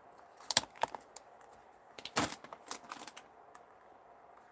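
Light plastic clicks and taps from handling a clear photopolymer stamp case and an acrylic stamping block: a few single clicks, then a louder cluster of taps about two seconds in.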